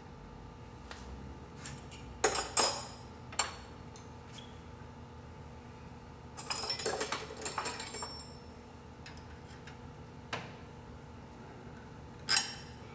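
Hand tool clinking and rattling against the metal parts of a vintage Harley-Davidson Knucklehead seat post held in a vise, during disassembly. There are two sharp clinks about two seconds in, a longer rattle of clinks about six seconds in, and single clinks later, the last near the end.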